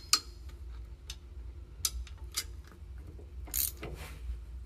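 Socket ratchet wrench clicking in short, spaced strokes as it turns the bolts of a CNC ball screw's thrust bearing housing, about half a dozen clicks in all, the loudest about three and a half seconds in.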